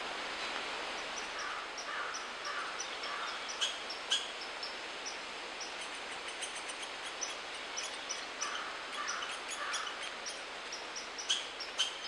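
Outdoor natural sound: many short, high bird chirps and calls over a steady background hiss, with a few sharper, louder calls about four seconds in and again near the end.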